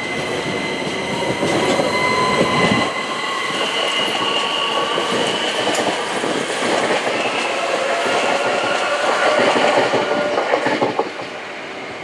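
London Overground Class 378 electric multiple unit passing close by: electric traction motors whining in steady high tones over the rumble of the wheels, with clicks as the wheels cross rail joints. The sound drops away about a second before the end as the last car passes.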